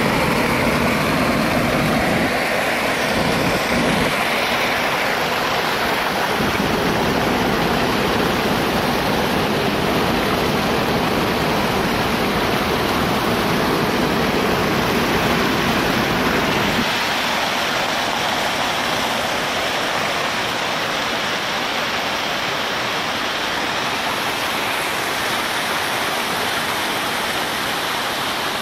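Floodwater pouring over a concrete dam spillway: a steady rush of falling and churning water. About two-thirds of the way through the deep part of the rush thins out and it becomes slightly quieter.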